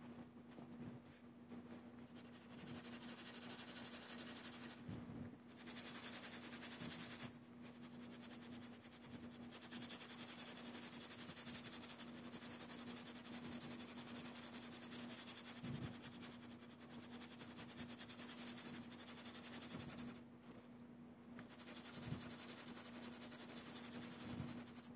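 Colored pencil shading on paper: a continuous scratchy hiss of back-and-forth strokes, breaking off briefly about five and seven seconds in and for a longer pause around twenty seconds, over a faint steady hum.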